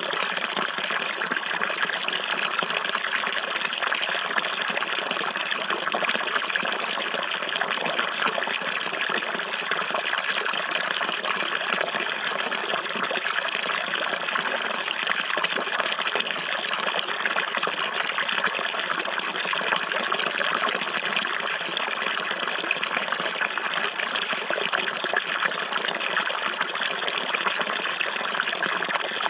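Running water flowing steadily, an even, unchanging rush with no distinct splashes or drips.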